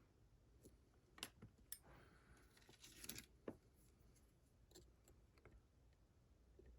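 Faint, scattered metallic clicks and light scraping of a thin lock pick working the pin stack inside a Vachette HDI lock cylinder, with about eight small ticks spread unevenly.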